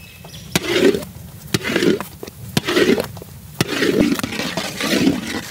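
A long-handled paddle stirring a thick batch of orange kesari (semolina, sugar and orange juice) in a large metal wok. Rhythmic scraping and squelching, with a sharp knock about once a second.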